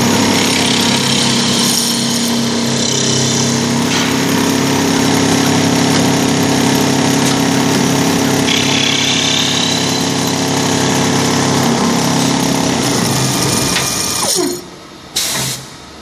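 Automatic wood-ball lathe running, its cutter turning a spinning wooden blank into a ball: a steady motor hum under a loud, hissing cutting noise. Near the end the noise drops away with a falling whine, then comes back in a short loud burst.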